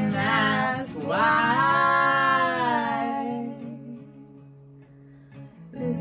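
Live acoustic guitar and a woman's singing voice. She holds one long note that slides and then fades, the music drops to a quiet lull, and a new sung phrase starts near the end.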